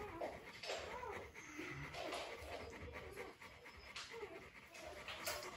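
Faint squeaks and whimpers of newborn Rottweiler puppies while they nurse, several short rising-and-falling cries, with the mother Rottweiler panting.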